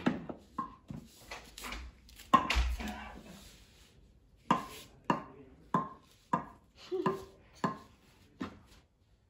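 A baby knocking a small wooden toy against a wooden board in a plastic toy bin: a sharp knock at the start and another about two seconds in, then a steady run of about seven knocks a little over half a second apart.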